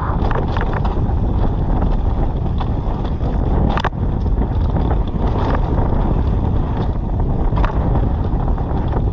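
Steady wind noise buffeting the microphone of a mountain bike's on-board camera during a fast descent, with a few sharp clicks and knocks from the bike over rough trail, the loudest about four seconds in.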